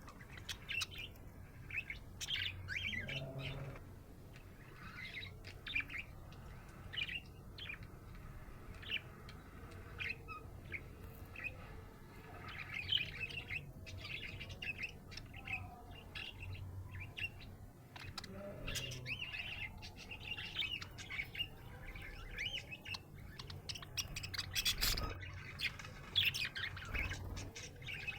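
A budgerigar chirping and chattering in a continuous stream of short, high twitters, with a few lower warbling notes mixed in.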